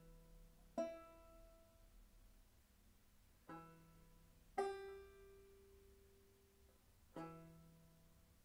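Banjo plucked slowly: four separate notes or chords, each left to ring and fade before the next, the second and fourth the strongest.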